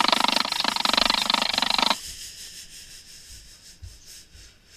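A recording playing back through a voice-changer app's 'Normal' setting: a loud, dense noise with a fast flutter that cuts off abruptly about two seconds in as playback ends, leaving faint background sound.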